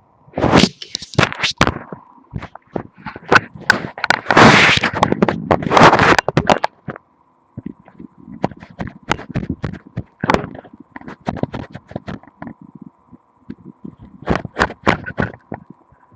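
Handling noise from a microphone pressed against the body and moved around on it. There are loud scraping rubs in the first several seconds and then a run of sharp clicks and knocks, with a faint steady high tone underneath.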